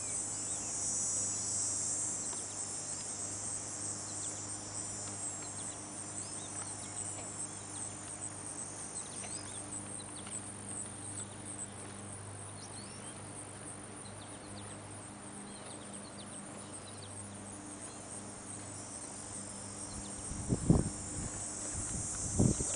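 Insects chirring in a high, dense steady drone that fades in the middle and swells again near the end, over a faint low hum. A few low bumps on the microphone near the end.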